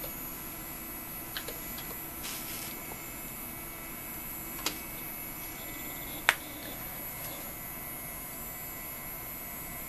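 Computer keyboard keys being pressed: two quick light keystrokes about a second and a half in, then two single sharper key presses a little under five and about six seconds in, the second the loudest. Under them runs a steady background hum.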